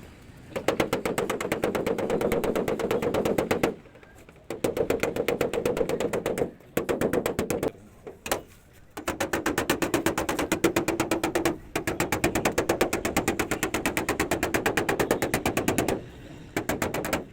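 Rapid, even tapping on the sheet metal of a Honda City bonnet as its dents are worked out by dry denting, the panel ringing under each blow. The tapping comes in runs of a few seconds with short pauses between them.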